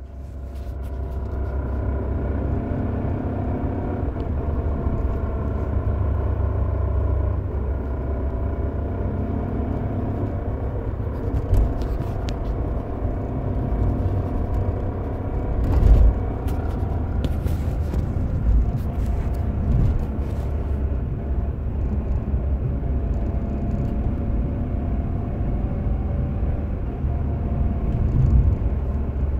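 Renault Kangoo 4x4 on the move, with a steady rumble and a rattling, knocking noise from the gearbox, and a few louder knocks. The owner suspects a worn bearing and damaged gear teeth in the front-drive differential.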